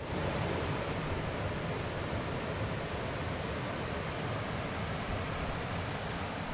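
Steady outdoor rushing noise, an even hiss with no distinct events.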